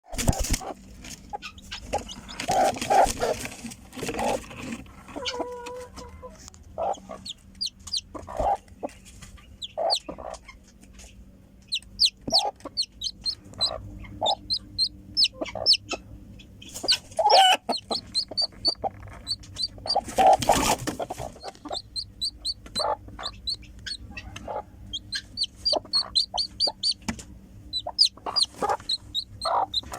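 Newly hatched domestic chicken chick peeping: short, high, slightly falling chirps in rapid runs, thickest in the second half, with lower clucks between them.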